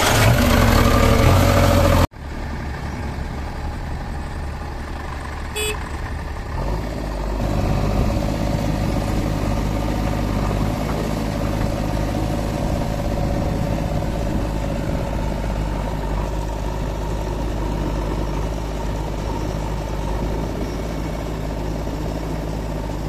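Diesel engine of a JCB 3DX backhoe loader idling steadily. It is heard close up at the engine bay first, then further off after a sudden cut about two seconds in.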